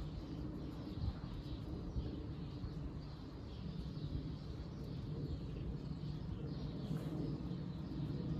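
Outdoor background: a steady low rumble with faint bird calls.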